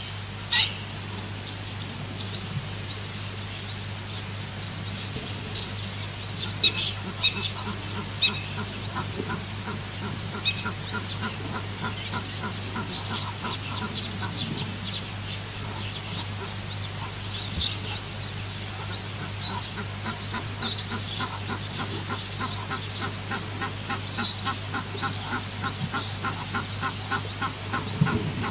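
Birds calling, most likely waterfowl: a long run of short repeated calls, about three a second, with scattered higher chirps and a few louder calls over them. A steady low hum runs underneath.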